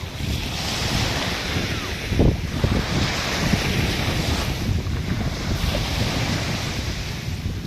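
Sea waves washing onto the shore, swelling and falling every couple of seconds, with wind buffeting the microphone.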